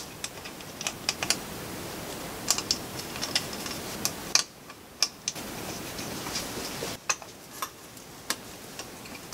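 Light metal clicks and taps, irregular and scattered, as small screws and turbocharger housing parts are handled and fitted together by hand.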